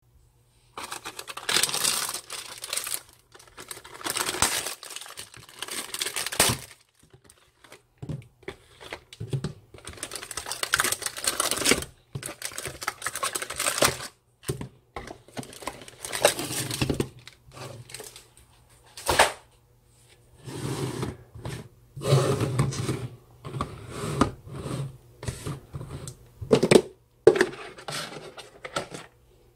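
Cellophane wrap crinkling and tearing as it is pulled off, in long bursts, then plastic tubs clicking and knocking as they are picked up and set down on a wooden table.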